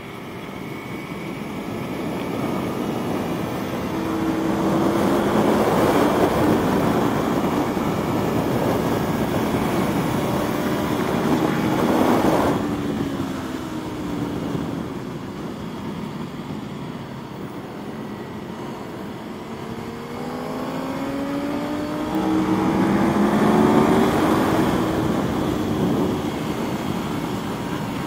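Aprilia Tuono V4 motorcycle's V4 engine heard onboard at track speed, revving up with rising pitch, easing off, then pulling hard again, under a steady rush of wind noise.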